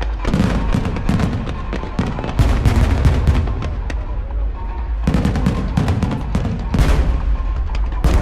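Fireworks going off in quick succession: many sharp bangs and crackles over a continuous low rumble, thinning briefly around the middle and crowding again in the second half.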